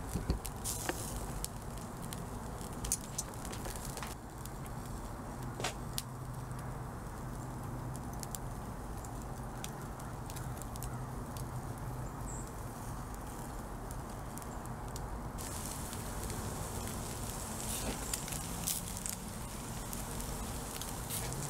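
Lump charcoal fire crackling under meat on a grill, with scattered sharp pops over a steady low background rumble.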